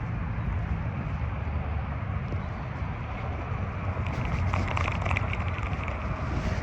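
Steady low rumble of wind on the microphone, with a short run of light, rapid ticks about four seconds in.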